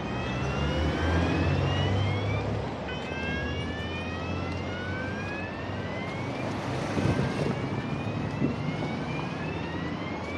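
Emergency-vehicle siren sounding in slow rising sweeps, each about three seconds long and dropping back to start again, over city street traffic. A vehicle engine swells and passes about a second in.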